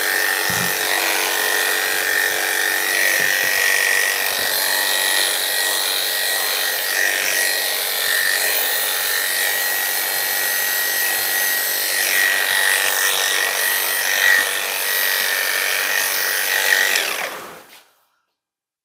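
Electric dog grooming clippers running steadily through a standard poodle's coat during a shavedown: a steady buzz with a high whine. It cuts off near the end.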